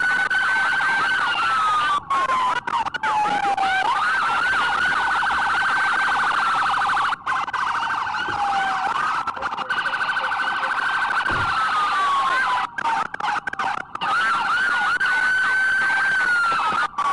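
Police sirens wailing, several overlapping: one wail rises quickly, holds high and falls slowly, about every four to five seconds, while other sirens sweep faster over it. The sound drops out briefly a few times.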